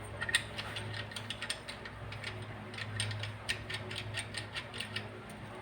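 Ratchet wrench clicking in quick, irregular runs while tightening screws on an oil-free dental air compressor, with a steady low hum underneath.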